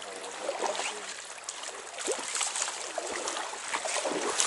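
River water rushing and trickling, with many small splashes.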